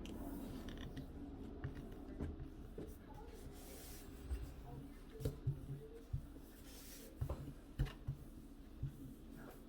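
Faint handling noises of a phone and its film screen protector being worked by hand: light scratchy rubbing with scattered soft taps, which cluster about five to eight seconds in.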